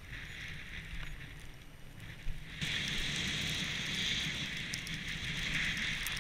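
Icelantic Shaman skis hissing through fresh powder snow, with wind rumbling on the microphone. The hiss gets clearly louder about two and a half seconds in and stays steady after.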